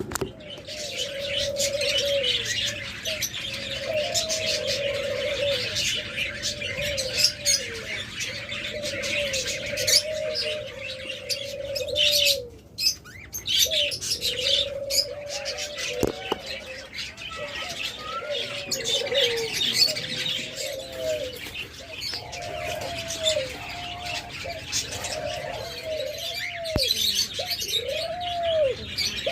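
Doves cooing over and over, ending in a run of arched rise-and-fall coos, over a steady chatter of many small cage birds chirping high above.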